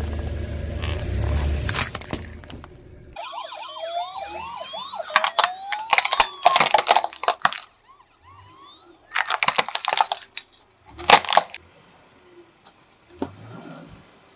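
A car tyre rolls over a plastic spray bottle with a low rumble. Then a toy police car's electronic siren wails in quick rising and falling sweeps while the plastic toy cars crack and crunch under the tyre in several loud bursts. Near the end a fainter crackle comes as another plastic spray bottle is squashed.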